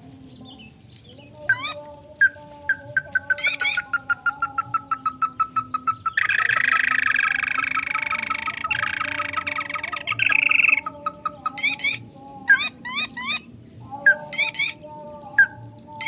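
Crake (burung tikusan) calls: a long run of sharp notes that speeds up and falls in pitch, with a loud harsh rattling stretch in the middle, then short clusters of quick rising notes.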